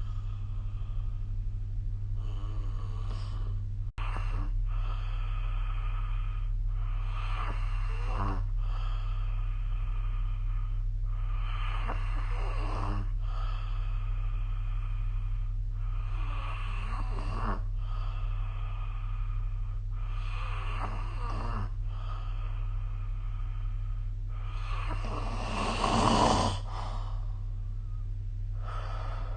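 A sleeping person snoring in slow, regular breaths, each lasting a second or two, one following another every couple of seconds, with a louder, harsher snore near the end. A steady low hum runs underneath.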